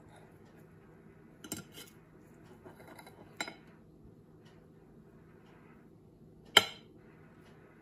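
Knife and fork clinking against a ceramic plate as pancakes are cut: a few light clinks, the sharpest one near the end.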